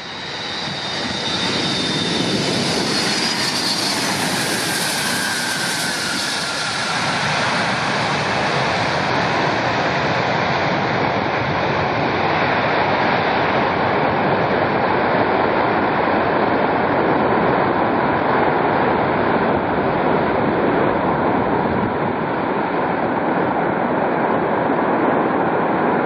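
The six Progress D-18T turbofan engines of an Antonov An-225 Mriya. Over the first several seconds a high jet whine with a falling tone is heard as the aircraft lands. After that the engines give a steady, loud roar as it rolls on the runway.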